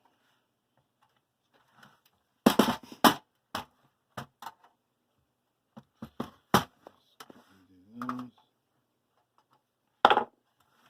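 Tool working the bendable metal tabs on a satellite receiver's metal case: irregular sharp clicks and short metallic scrapes, the loudest a couple of seconds in and again near the end.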